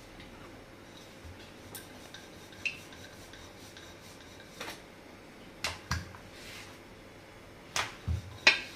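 Wooden rolling pin rolling out a disc of dough on a floured granite counter: soft rubbing with scattered light clicks and knocks, more of them in the second half.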